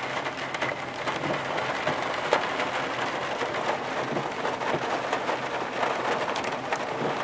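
Rain falling on a vehicle, heard from inside the cabin: a steady even hiss with scattered small ticks of drops.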